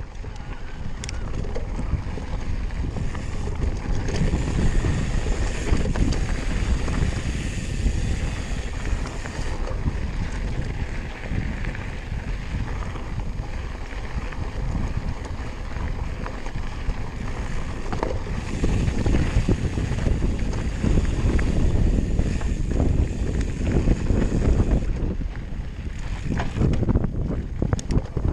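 Wind buffeting the camera microphone on a moving e-mountain bike, with a steady rumble of the tyres rolling over a dirt and gravel singletrack and a few sharp knocks from bumps along the way.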